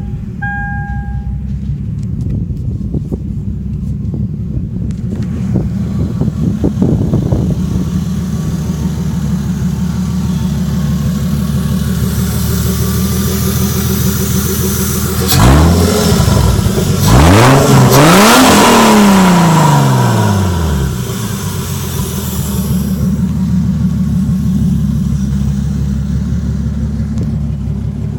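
Turbocharged Lexus IS300 engine running under way with a steady low drone, after a brief beeping tone at the very start. About halfway through it is revved hard, its pitch climbing in a few quick steps that break off as if shifting gears. The pitch then falls in one long sweep as it comes off the throttle, with a rushing hiss over the loudest stretch, before settling back to a steady drone.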